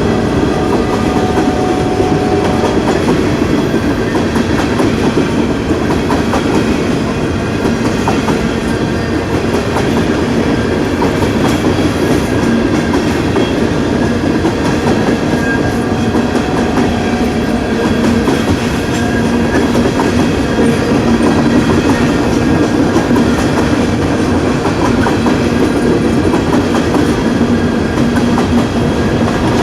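Freight train cars rolling past at speed: steady, loud wheel and rail noise with clickety-clack from the wheels over the rail joints.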